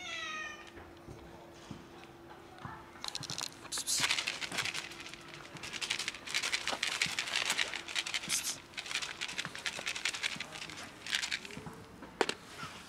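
A cat gives one short meow that falls in pitch, then a long stretch of plastic crinkling and clicking as a plastic food container is handled and set down, with a sharp click near the end.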